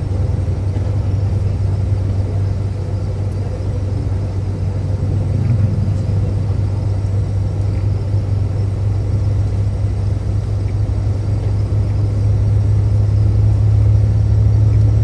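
A car driving along at speed: a steady low rumble of road and engine noise, swelling a little near the end.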